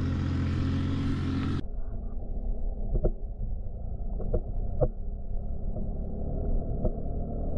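A camera submerged in a shallow pond picks up a dull, muffled low rumble with a few sharp knocks, about four. Before it, a steady low hum with hiss stops suddenly about a second and a half in.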